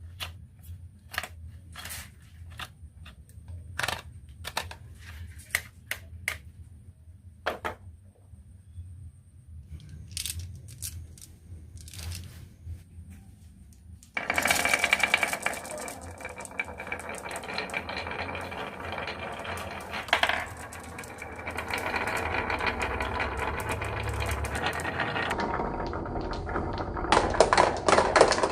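Marbles clicking on a marble run: scattered single clicks and knocks at first, then about halfway in a dense, continuous clatter as many marbles roll and bounce down the track together.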